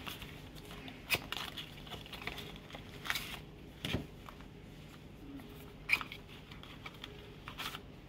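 Cardboard retail box being handled: the inner tray sliding out of its sleeve, with scattered scrapes, crackles and taps of card, the sharpest about a second in and about six seconds in.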